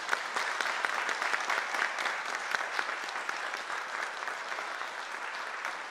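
An audience applauding, a steady patter of many hands clapping that swells up just before and tails off near the end.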